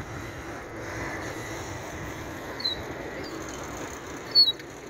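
Steady outdoor rustle and wind-like noise as the phone is carried under a shawl, with a few short high chirps, the sharpest near the end.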